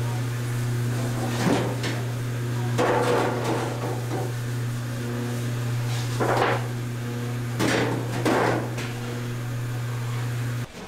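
Steady electric machine hum in a stainless steel kitchen, which cuts off near the end. Over it come several wet rustles and scrapes as glass noodles mixed with pig blood are scooped by gloved hands out of a stainless mixer, with a few metal knocks against the steel tubs.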